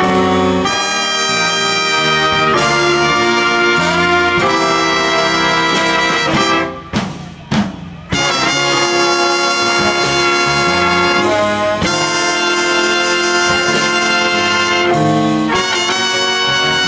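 Jazz big band playing a funk tune, the horn section of trumpets, trombones and saxophones playing riffs together. The band drops out for about a second roughly seven seconds in, then comes back in full.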